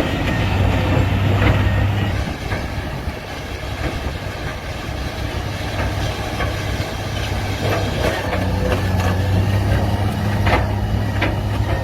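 Heavy diesel-powered wood shredder running: a steady low engine hum under mechanical clatter. The hum sinks for several seconds in the middle, then comes back.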